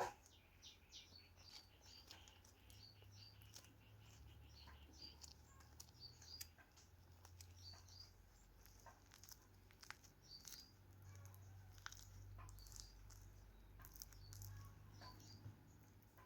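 Faint, scattered short bird chirps, repeating irregularly, with a few small clicks over a low background hum.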